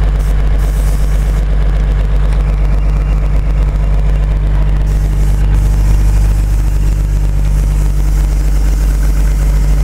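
Engine idling steadily, a loud, even low drone.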